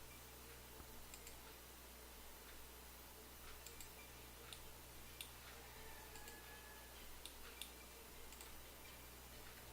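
Faint computer mouse clicks, about a dozen scattered irregularly, over a steady low electrical hum.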